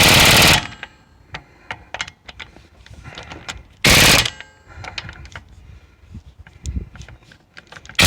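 Pneumatic impact wrench hammering in short bursts as it spins off wheel lug nuts: one burst ending about half a second in, another of about half a second around four seconds in, and a brief one at the end, with small metal clicks and clatter between. Fitted with high-volume air couplers, it now takes off lug nuts it could not shift before.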